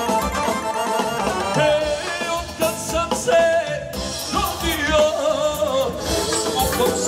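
Amplified live folk music from a wedding band, with a steady beat. A man sings lead into a microphone, his voice coming in over the instruments about a second and a half in.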